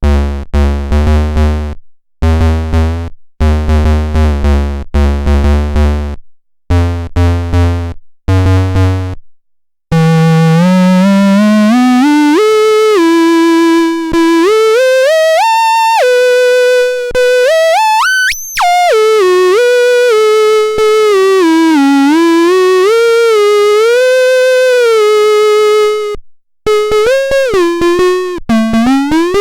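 COSMOTON 2 mini synthesizer playing: first a run of short, pulsing low notes separated by brief gaps, then from about ten seconds one continuous tone that glides up and down in pitch, and near the end short, detached notes again.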